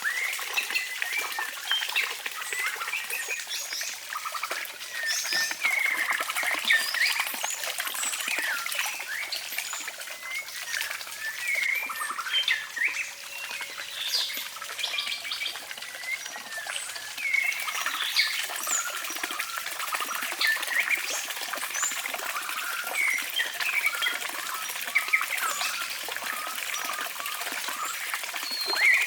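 Many small birds chirping and calling in quick, overlapping short notes, over a faint trickle of water.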